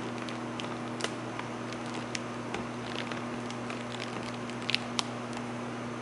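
Steady electrical hum and fan hiss from a Ziehm Vista mobile C-arm X-ray system powered on and booting, with scattered sharp clicks, a few louder ones close together near the end.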